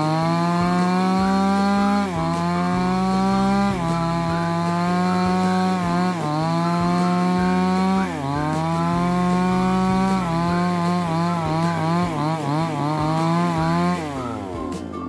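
Two-stroke chainsaw revved up to full speed and cutting wood, its pitch dipping under load every couple of seconds, then winding down near the end.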